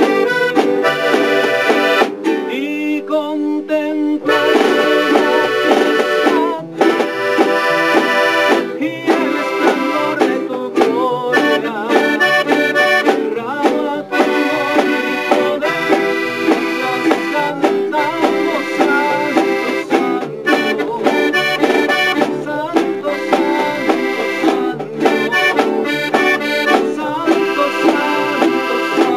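Live acoustic band music led by an accordion playing the melody, over strummed guitars and a large acoustic bass.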